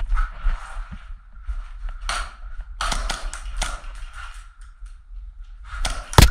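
Airsoft guns firing: scattered shots in quick clusters, a run of several about halfway through, and the loudest, sharp crack near the end.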